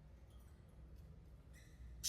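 Budgie, quiet between calls: a few faint high chirps and small clicks over a low steady rumble. A soft chirp starts near the end.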